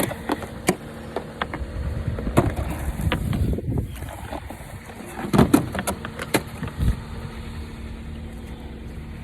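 A car idling with a steady low hum, and a handful of sharp knocks and thumps a second or two apart, the loudest cluster about five and a half seconds in.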